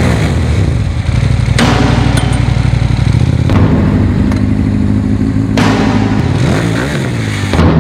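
Motorcycle engines running and revving loudly. The engine sound changes abruptly about every two seconds, with a brief rise and fall in pitch near the end.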